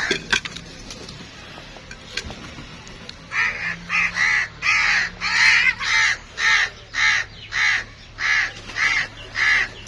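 A crow cawing repeatedly, about a dozen harsh caws at roughly two a second. The calls start a few seconds in and run almost to the end.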